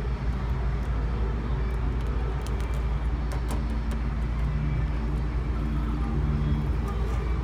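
Steady low rumble of a running motor-vehicle engine, with a few faint clicks near the middle.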